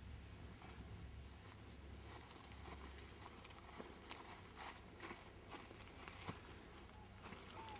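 Faint footsteps on grass and a few light clicks, over a low steady hum.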